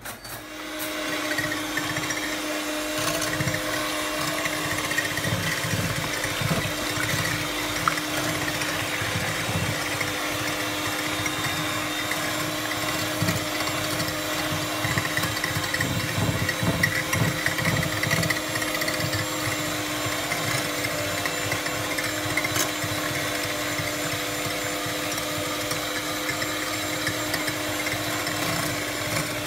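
Electric hand mixer switched on and running steadily at one speed, its beaters whisking raw eggs in a plastic bowl.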